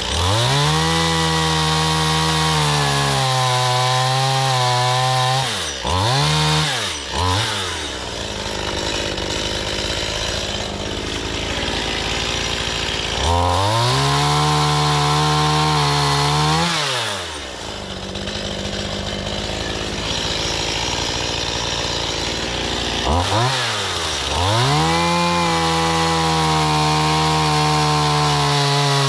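Stihl MS171 two-stroke chainsaw bucking firewood logs: three long bursts at full throttle as it cuts through the wood, dropping to idle in between, with a few quick throttle blips.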